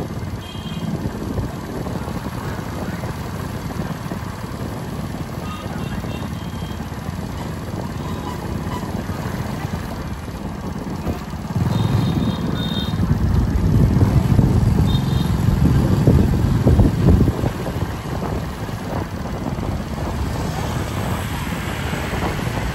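A motor engine running with a low rumble that swells for several seconds in the middle and then eases off, with a few short high chirps over it.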